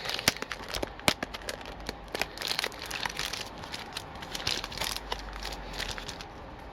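Hockey card packs crinkling and rustling as they are handled, with many small irregular crackles and taps.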